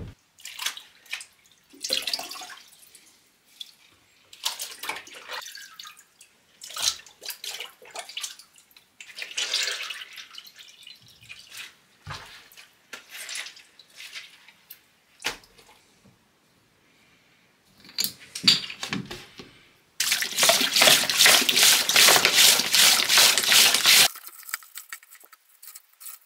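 Water splashing and sloshing in grey plastic crates as gloved hands work in it, with small knocks against the crates. Near the end, water streams into a crate from a hose for about four seconds, the loudest sound.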